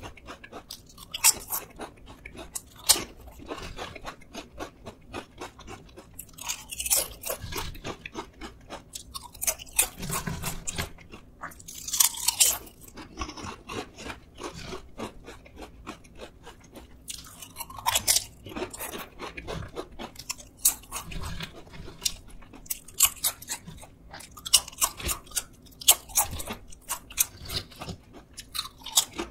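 Crunching and chewing of Kwasak Chip sour onion potato chips: sharp crisp cracks in irregular clusters, with softer chewing in between.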